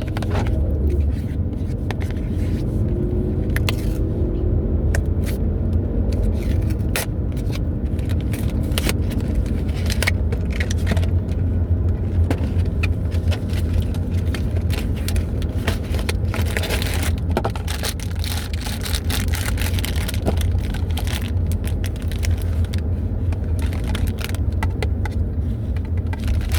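Steady low rumble of car road noise heard inside the cabin, with many short clicks and scrapes of things being handled on top.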